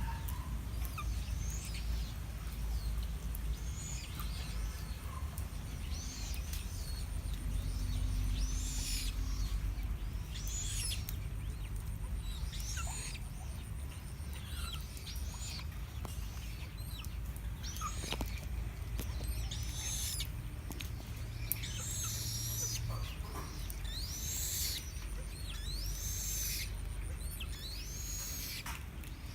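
A chích cồ bird giving short, high calls again and again, each a quick rise and fall in pitch, about one every second or two and coming more often in the second half, over a low steady rumble.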